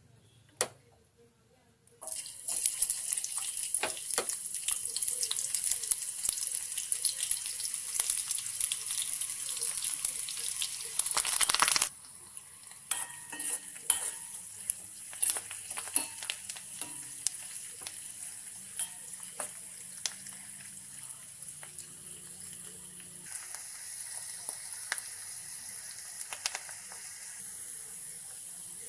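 Curry leaves and chopped onion hit hot oil in a steel wok about two seconds in and sizzle loudly, with scattered crackles and clicks. About ten seconds later the sizzle drops to a quieter, steady frying sound, still with small clicks from stirring.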